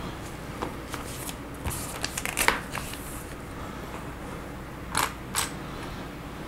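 Plastic Lego bricks being handled and pressed together on a tabletop: scattered small clicks and taps, a little cluster of them about two seconds in and two louder clicks about five seconds in.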